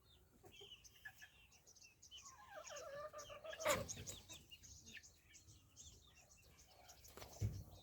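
Faint chirping of small birds throughout, with one drawn-out falling call from a chicken about halfway through, ended by a sharp click.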